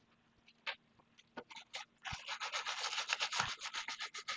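A brush scrubbing a circuit board wet with cleaner around a freshly soldered QFP chip, cleaning off flux residue. A few separate strokes come first, then about two seconds in rapid, steady back-and-forth scrubbing.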